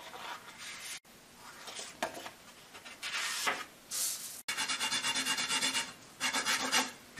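Sheets of paper and sandpaper sliding and being laid down on a table, then a pool cue's new tip rubbed back and forth on fine sandpaper. The sanding comes in two quick runs of rasping strokes, about six a second, near the end.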